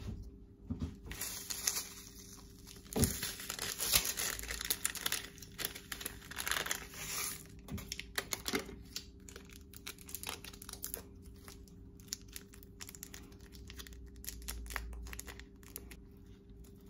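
Plastic sachets of instant miso soup crinkling as they are torn open and emptied into a bowl: a dense crackle for the first several seconds, then scattered light clicks and rustles.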